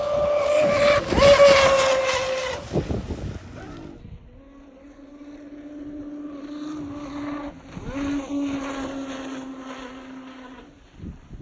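XTeam 3674 2200KV brushless motor in a radio-controlled boat's electric outboard, overvolted on 6S, running hard: a steady high whine over a hiss, loudest in the first couple of seconds. About four seconds in, it gives way to a lower, steady whine that holds until near the end.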